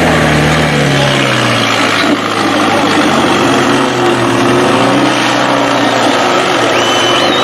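Diesel engines of off-road trial trucks running hard as one crawls up a rock step. The engine note drops about a second in, then holds over a steady rush of noise.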